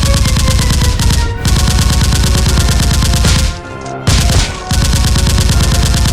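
Rapid automatic gunfire in long bursts of about two seconds with short breaks between, over background music.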